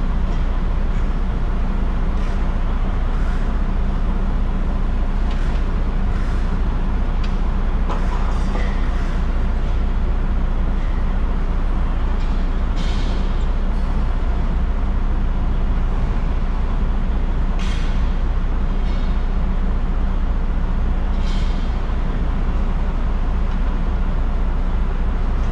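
A heavy vehicle running steadily, a constant low engine drone with road noise, broken by a few short hissing bursts.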